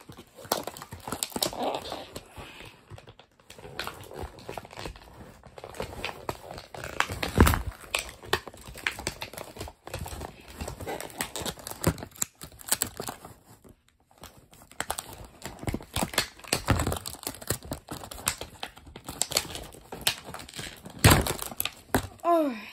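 Plastic blister tray and cardboard box of an action figure being handled and pulled at, with irregular crinkling, scraping and knocks. The loudest knocks come about seven and a half seconds in and near the end.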